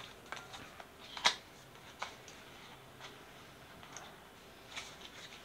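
Cardboard earbud retail box being handled and its end flap pried open: a sharp click about a second in, a smaller one shortly after, and a few faint scrapes of paperboard near the end.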